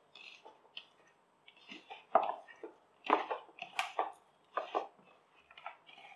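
A bare hand squeezing and kneading boiled grated potato with breadcrumbs in a plastic bowl: irregular squishes and crumbly rustles, louder in the middle.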